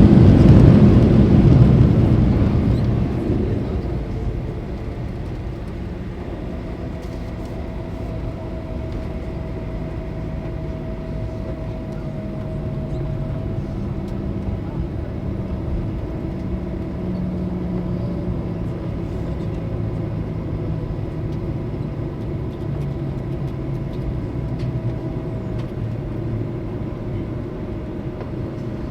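Boeing 737-900's CFM56-7B jet engines and rollout roar heard from the cabin just after landing. The roar dies away over the first few seconds, then settles into a steady taxi rumble with a steady engine whine.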